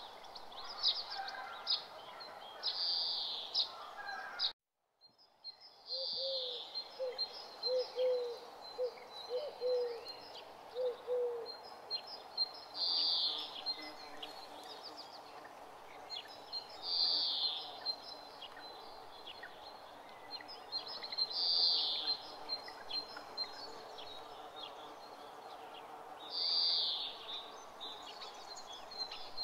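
Outdoor nature ambience: birds calling, with a high call repeating about every four seconds over a steady background hiss. A quick run of short low notes follows a brief complete cut-out of the sound about four and a half seconds in.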